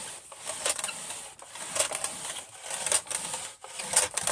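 Irregular rubbing and scraping strokes on carpet, a few a second, as flour is pressed and rubbed into the pile.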